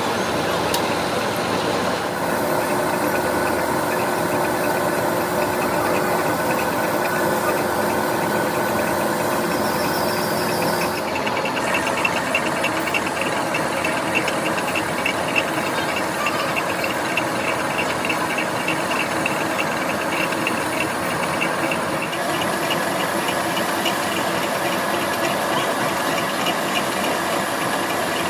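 Steel being worked by shop machinery: a machine runs steadily with a hissing cutting noise and a fast, fine rattling chatter. The sound changes abruptly about 2, 11 and 22 seconds in.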